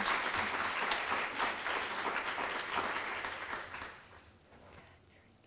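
Audience applauding, with many hands clapping, fading away about four seconds in.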